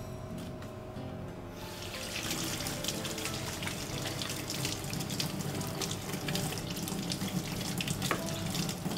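Tap water running into a kitchen sink, starting about a second and a half in, splashing over a fish as it is rinsed clean of blood and scales.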